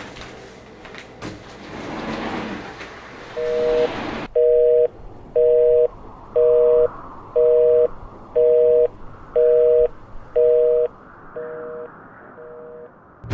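Telephone busy signal: a steady two-note beep, about half a second long, repeating about once a second, with the last two beeps fainter. Before it, a noisy rustling stretch cuts off sharply about four seconds in.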